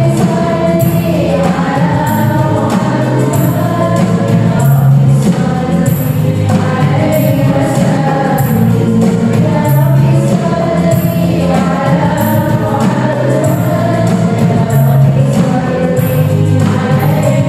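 Live qasidah music: voices singing sholawat, devotional songs praising the Prophet, over keyboard and a steady percussion beat.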